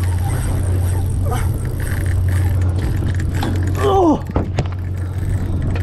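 Engine running with a steady low drone, and a short falling call about four seconds in.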